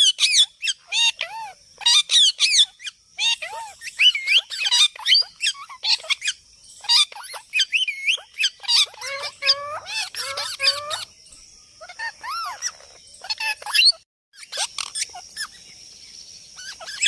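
Parrot calling: a rapid, continuous run of short chirps, squeaks and squawks that rise and fall in pitch, broken by a brief silence about fourteen seconds in.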